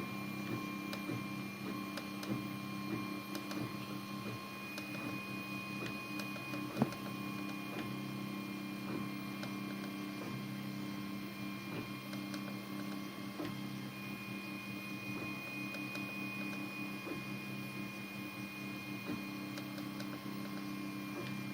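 Anet A8 3D printer printing: stepper motors give thin whining tones that step and shift in pitch as the head moves, over a steady hum, with faint ticks and one sharp click about seven seconds in.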